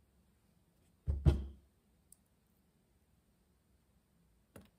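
A single dull thump about a second in, a screwdriver being set down on a padded work mat, then a faint click near the end as small carburetor parts are handled.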